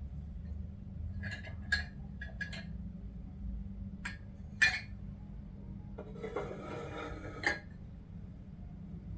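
Kitchenware clinking: a series of light clinks of utensils against dishes and glass, the loudest about four and a half seconds in, over a low steady hum.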